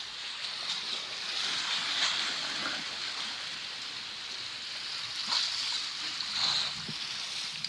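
Sea waves washing and splashing against breakwater boulders, surging about two seconds in and twice more near the end.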